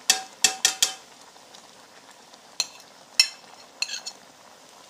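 Metal ladle clinking against the metal cooking pot: four quick ringing clinks in the first second, then three more single clinks spaced over the next few seconds. Under them a faint simmering sizzle comes from the chicken karahi cooking on high heat.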